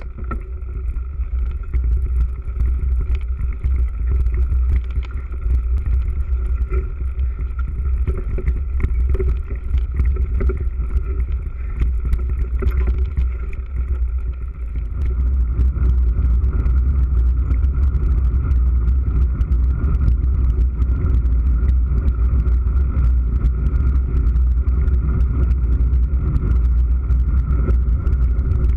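Wind and ground rumble on a GoPro's microphone as a mountain bike rides fast over grass and then a rough track, with many small clicks and rattles from the bike and camera mount. The rumble becomes steadier about halfway in.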